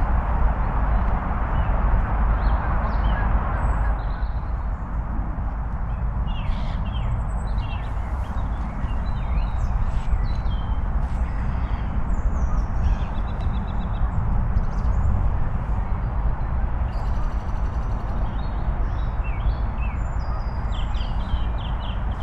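A steady low rumble runs throughout, with birds chirping and calling repeatedly from about six seconds in.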